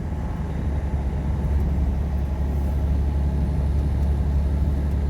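Semi-truck's diesel engine and road noise droning inside the cab at highway speed: a steady low hum that grows a little louder over the first second or two.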